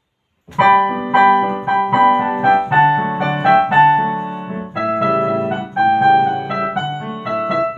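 Piano-style keyboard playing the instrumental introduction to a children's song, chords under a melody, starting abruptly about half a second in.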